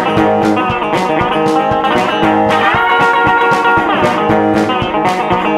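Electric hollow-body guitar played with a glass slide through a small amp: a blues-style slide break, the notes gliding up and down between held pitches, over a steady beat.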